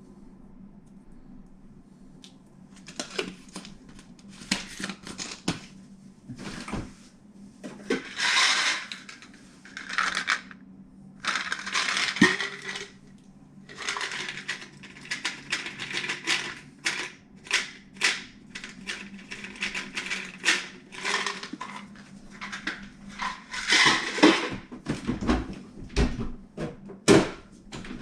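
Items being handled by hand: an irregular run of clicks, knocks and clattering, like containers and dishes being picked up and set down.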